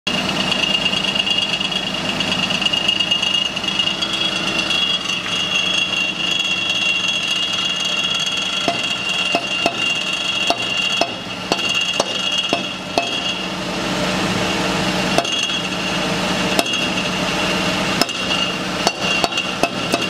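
A tool repeatedly knocking on the exhaust front pipe of a Suzuki Wagon R Stingray (MH23S), roughly one sharp knock every half second from about nine seconds in, with a short pause midway. The tapping is a check for the pipe's rattling (karakara) noise. A steady hum runs underneath.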